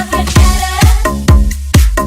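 Electronic dance music with a thumping kick drum on a steady beat, about two beats a second.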